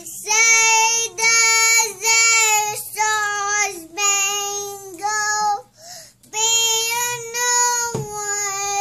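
A small child singing a string of long held notes, one after another, with a short break about six seconds in; no words come through clearly.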